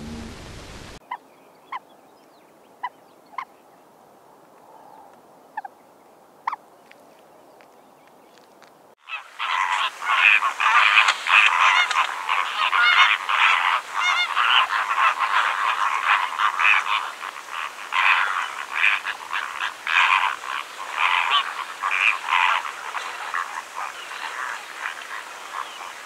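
A flock of flamingos honking and gabbling, many calls overlapping in a dense, continuous din that starts suddenly about nine seconds in. Before it there is only a quiet background with a few faint, short chirps.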